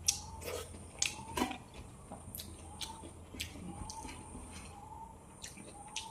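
Close-miked eating sounds: wet chewing and lip smacks, irregular sharp clicks a few times a second.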